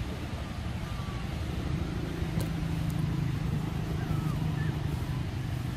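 Low hum of a motor vehicle's engine under outdoor background noise, swelling through the middle and easing off, with a few faint, short bird chirps.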